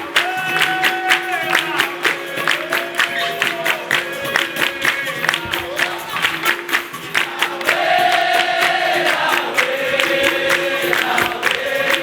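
Capoeira roda music: a group singing in chorus over a steady berimbau tone, with percussion and hand clapping on a regular beat.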